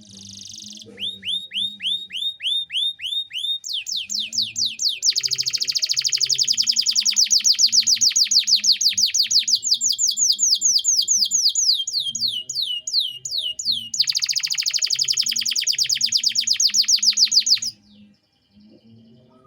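Male canary singing rolling trills: series of quick downward-sweeping notes, some slow and spaced at about three a second, others very rapid, changing pace several times and stopping abruptly near the end.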